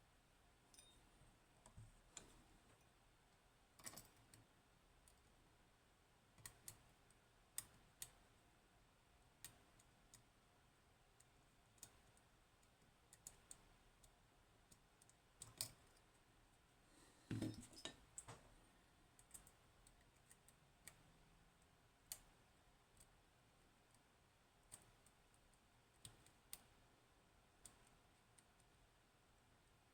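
Faint, irregular small metal clicks of a lock pick working the pins of a 15-pin Codkey Locksys lock. A slightly louder cluster of clicks with a dull knock comes a little past halfway.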